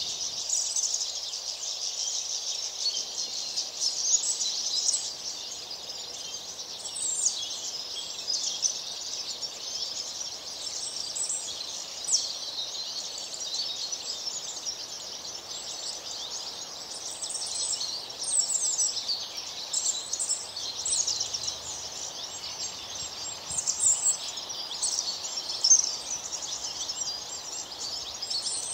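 Many small birds chirping and twittering at once, a dense, continuous chorus of quick high-pitched chirps and trills over a faint background hiss.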